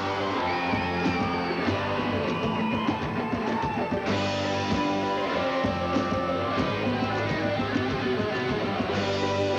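A rock band playing live: strummed and plucked guitars over bass and drum kit, in an instrumental passage between sung lines. A lead line bends up and down in pitch during the first couple of seconds.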